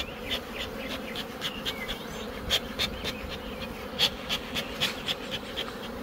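Honeybees buzzing in a steady hum over an open hive, with a scatter of short sharp ticks, several a second.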